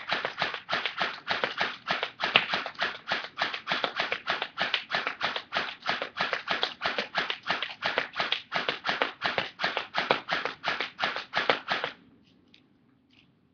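M4-style airsoft rifle firing on semi-auto as fast as the trigger is pulled: a long, even string of sharp shots at about four to five a second, one shot per pull, stopping about twelve seconds in.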